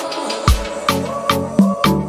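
Background music with a steady beat: sharp percussion hits a little over twice a second over sustained pitched notes, with a deep bass hit about half a second in.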